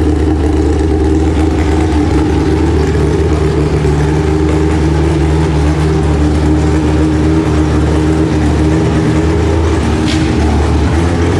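Tuned car engine idling steadily: a loud, even running note with no revving.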